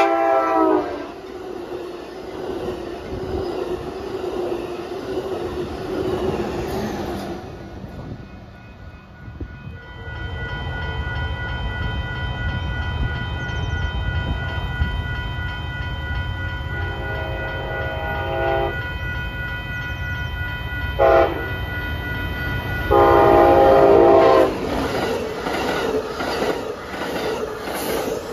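An Amtrak Pacific Surfliner's horn ends and the train rushes past at speed. After a cut, grade-crossing bells ring steadily as a second Surfliner, led by a Siemens SC-44 Charger locomotive, approaches and sounds its horn: a long blast, a short one and a loud long one. The bi-level cars then rush past with rhythmic wheel clicks.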